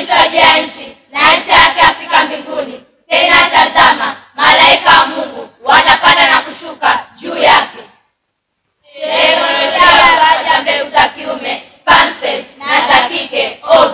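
Group of children's voices chanting in unison, loud, in phrases of about a second with short breaks and a brief full stop about eight seconds in.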